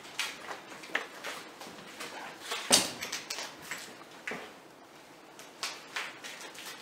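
Footsteps, scuffs and crunches of people walking over a debris-strewn tiled floor: a string of irregular short knocks, the loudest a little before the middle.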